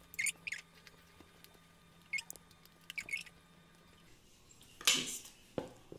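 Flour being poured from a plastic canister into a Thermomix mixing bowl: a few short scratchy rustles, then one louder rush of pouring and a thump near the end.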